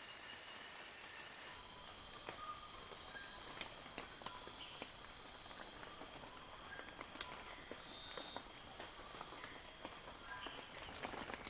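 A cicada's high, steady buzz starts about a second and a half in and cuts off suddenly near the end. Sparse raindrops tick on leaves throughout.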